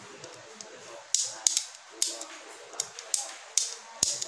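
Hand tools and small metal and plastic parts being handled and set down at a workbench: an irregular run of sharp clicks and clatter, with a heavier knock near the end.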